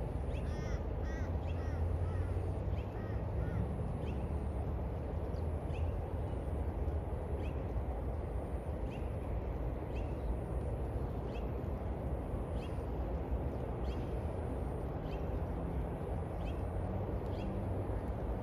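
A crow cawing several times in the first few seconds, over a steady low rumble with a faint regular tick about every second.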